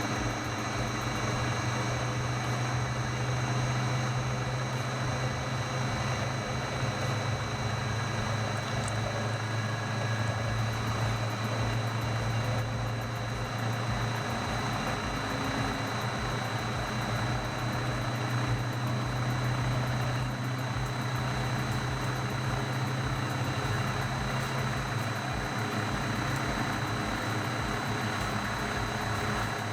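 Kokusan top-discharge centrifuge running steadily: an even low motor hum with a steady thin high whine over it.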